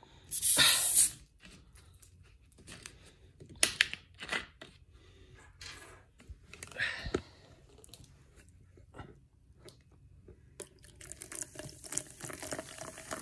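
Plastic bottle of fizzy fruit drink being opened: a short loud hiss as the cap is loosened, a few clicks and knocks of the cap and bottle being handled, then the drink pouring and fizzing into a plastic cup near the end.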